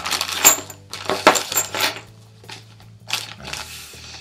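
Plastic packaging crinkling as small metal hardware is unwrapped, with a steel chain and zinc-coated cast-iron lock plates clinking and knocking onto a tabletop; the sharpest knocks come about half a second and just over a second in.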